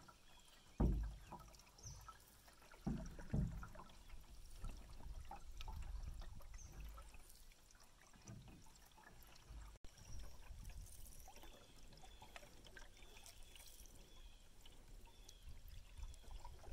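Faint canoe paddling: water trickling and dripping off the paddle with each stroke, with a few low thumps in the first few seconds.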